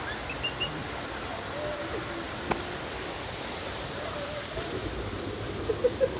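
Creek water rushing steadily. A few short high chirps sound just after the start, and a quick run of short low calls, about five a second, comes near the end.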